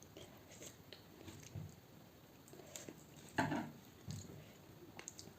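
Close-miked mouth sounds of someone eating fish curry: faint chewing with small wet clicks, and one louder mouth sound about three and a half seconds in.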